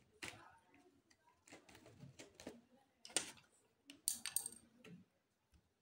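Faint pencil-drawing sounds: graphite scratching on paper and light clicks of the pencil and hands against a plastic lap desk, coming in scattered strokes, the loudest a few seconds in.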